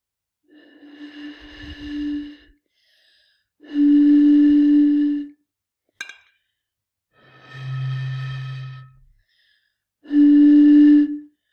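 Breathy, hooting notes blown across the mouths of two green glass wine bottles holding different amounts of water. The fuller bottle gives a higher steady note twice, then the bottle with only a little water gives a much deeper note about seven seconds in, and the higher note returns near the end: less water, lower pitch.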